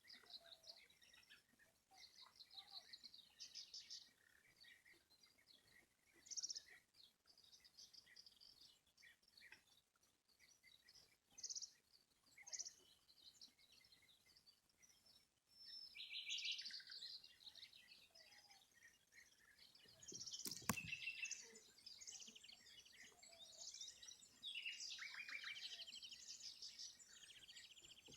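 Faint chorus of small songbirds chirping and trilling, many short high calls overlapping and growing busier in the second half. A single sharp click about two-thirds of the way through.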